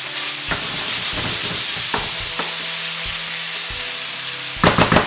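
Strips of meat and sliced vegetables sizzling over high heat in a frying pan while a wooden spatula stirs them, with a few knocks of the spatula against the pan and a louder burst of scraping near the end. The steady sizzle is the juice the vegetables released boiling off.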